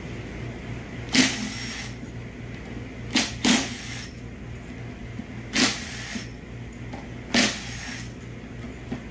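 A Ridgid cordless impact driver spinning out the small bolts that hold the two halves of a 6L80 transmission valve body together, in five short bursts of about half a second each, over a steady low hum.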